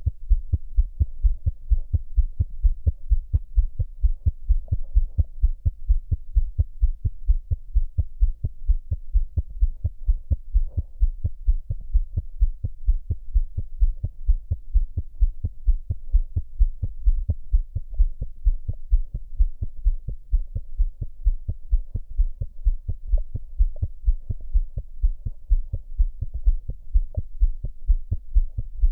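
A newborn's heart beating fast and evenly, the normal rapid rate of a neonate. There are occasional soft breathing sounds between the beats. The heart sounds are normal, with no murmur.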